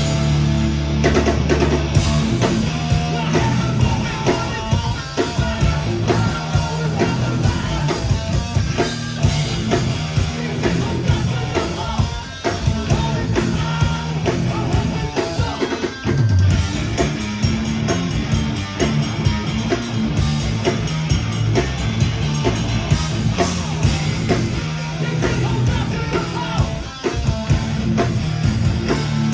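A hardcore band playing live and loud, with electric guitar and a drum kit.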